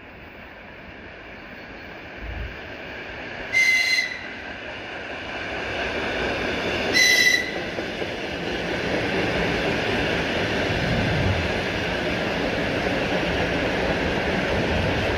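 ER2K electric multiple unit passing: two short, high-pitched horn blasts about four and seven seconds in as it approaches. Then comes the steady rolling noise of its cars going by, which grows louder until the cars are alongside.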